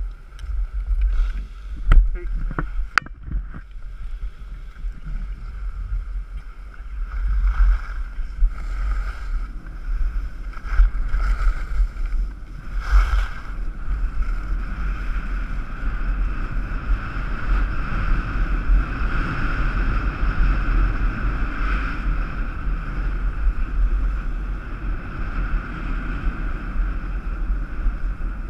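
Wind buffeting the microphone and skis hissing and scraping over packed, groomed snow during a downhill run, the rushing noise becoming steadier and fuller about halfway through. Two sharp clicks about two and three seconds in.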